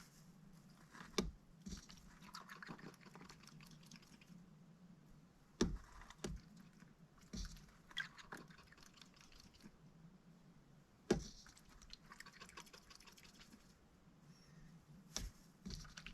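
Mallard duck pecking and dabbling at its wheat and water dishes: sharp knocks of the bill on the dish a few times, between stretches of quick clicking and rustling.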